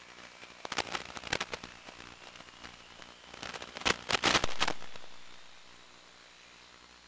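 Steady hiss of an analog FPV video downlink's audio, broken by two bursts of crackling static, about a second in and again around four seconds in, the second louder and fading out: the video link breaking up. A faint high whine slowly rises in pitch underneath.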